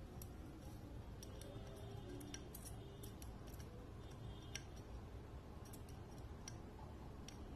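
Faint, scattered light clicks and ticks of small hand tools touching a circuit board and chip pins during hand soldering, over a low steady hum.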